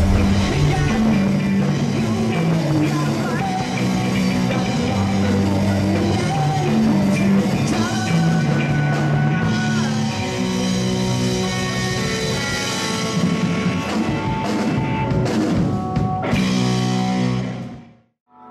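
Rock music with singing, drum kit and guitar, which cuts off abruptly near the end.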